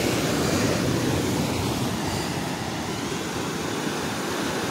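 Sea surf washing steadily against a rock seawall, an even rushing noise with no breaks.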